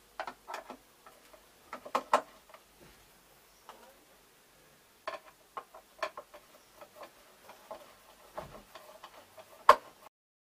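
Irregular light clicks and knocks from hands and a tool working on a wall-mounted ultracapacitor bank panel, with two sharper knocks about two seconds in and the loudest single knock near the end.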